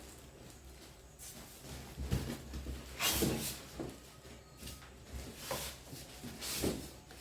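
Packaging being handled during an unboxing: several short, irregular rustles and bumps, the loudest about three seconds in.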